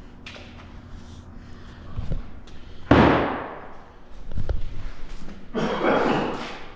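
A loud, sudden bang just before three seconds in that fades over about a second, with a couple of duller thumps around it and a noisy rustle near the end.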